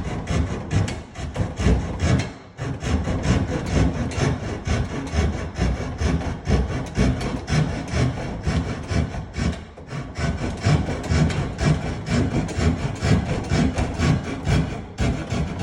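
Irwin finish saw (a fine-toothed hand saw) sawing and scraping wood in rapid back-and-forth strokes, trimming leftover peg stubs and residue flush so the cut stile sits flat. The strokes pause briefly about two and a half seconds in and again near ten seconds.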